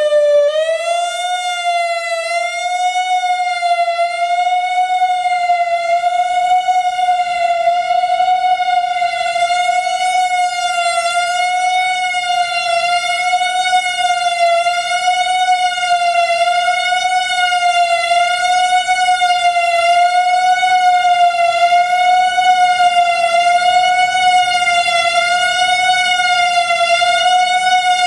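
Whelen WPS-3000 analog electronic storm siren sounding a loud steady tone, the alert signal, with a slight regular wobble in pitch.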